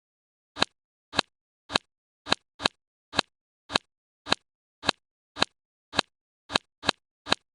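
A series of sharp single clicks, about two a second and sometimes two in quick succession, over dead silence.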